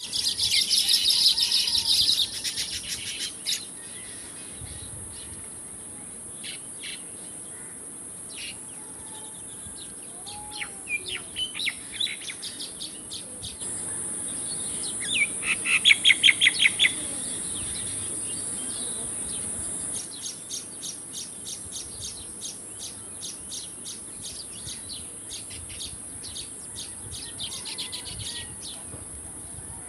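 Baya weavers chirping in quick runs of short chirps, loudest at the very start and in a fast run about sixteen seconds in, over a steady high-pitched hiss.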